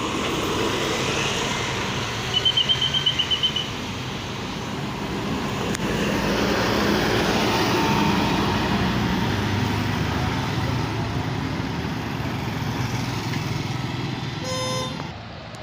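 Large bus engines running as buses come down a steep hill, a steady low drone that swells in the middle. About two seconds in comes a quick run of high beeps, about six a second, lasting just over a second. Near the end there is a short pitched horn toot.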